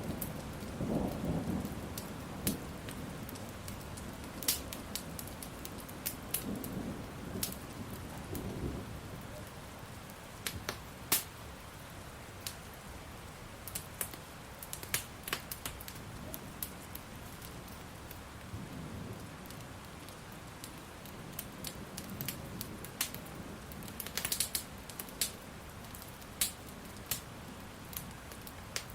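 Steady rain with a low roll of thunder that dies away in the first seconds and rumbles again briefly a few seconds later, while a wood fire crackles with sharp scattered pops, a quick cluster of them near the end.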